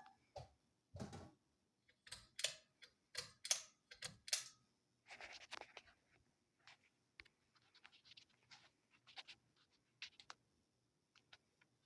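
Scattered light clicks and scratching sounds at an irregular pace, busiest in the first half, with quiet gaps between them.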